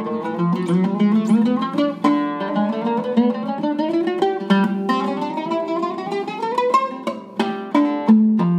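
Syrian-made oud with a cedar top and old walnut back, played with a pick: a quick run of single picked notes that climbs steadily in pitch up the fingerboard, then a few separate sharply struck notes near the end, left to ring.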